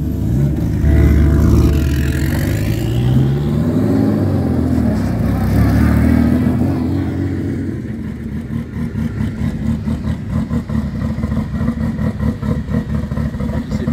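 Classic competition car engines pulling away one after another, revving up and down. After about eight seconds a single engine settles into a close, steady idle with a fast, uneven beat.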